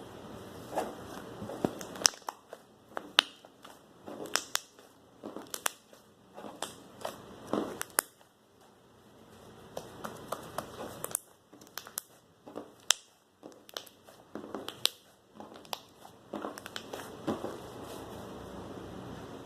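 Hands kneading and pressing glitter slime, making irregular sharp clicks and pops as air pockets burst.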